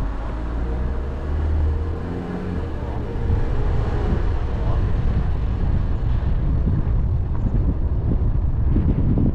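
Car driving on the road: a low rumble of engine and tyre noise with wind buffeting the microphone. A steady pitched hum sits over it for the first few seconds, then fades.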